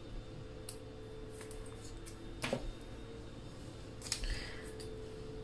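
Paper planner sticker being peeled from its backing and handled with tweezers: a few faint, sharp clicks and crinkles, the sharpest about two and a half seconds in, over a faint steady hum.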